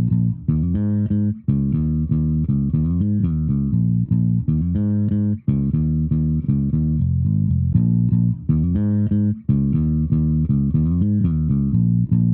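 Instrumental intro music of plucked bass and guitar notes, a short phrase repeating about every four seconds.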